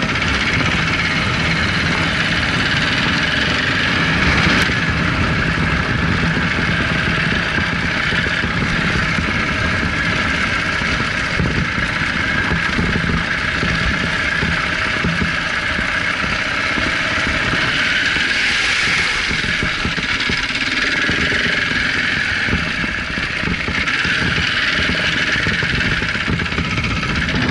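KTM 690 Enduro R's single-cylinder four-stroke engine running steadily as the bike is ridden along a rough trail.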